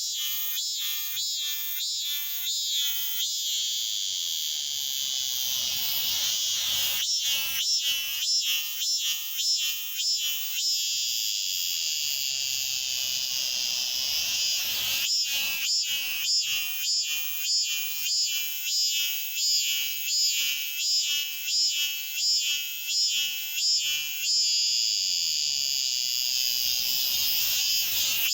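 Cicadas singing in chorus: a high shrill buzz that swells into steady stretches and breaks into runs of rapid pulses, about three a second. These are males calling; the females stay silent.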